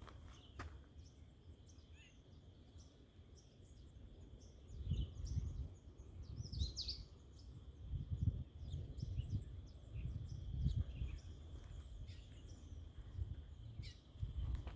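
Outdoor ambience: birds chirping in short, scattered calls over a steady high-pitched tone, with bursts of low rumble from about five seconds in.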